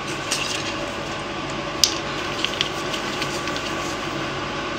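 Steady mechanical hum of the room, with a few light clicks and taps as a sauce bottle and a plastic mayonnaise pouch are handled over a plate; the sharpest click comes about two seconds in.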